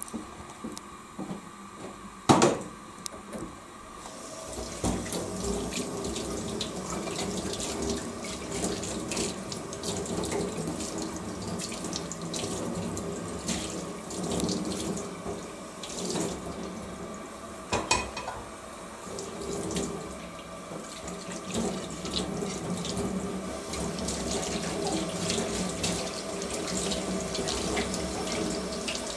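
Water boiling in a lidded stainless steel pot of shijimi clams on a gas stove: a steady bubbling that sets in about five seconds in. A single sharp click a couple of seconds in.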